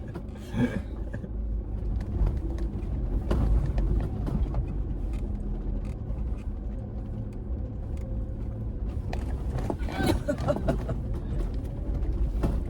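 Four-wheel-drive SUV crawling slowly over a rough, steep 4x4 track. Its engine and drivetrain give a steady low rumble, with scattered knocks and rattles as the vehicle works over the uneven ground.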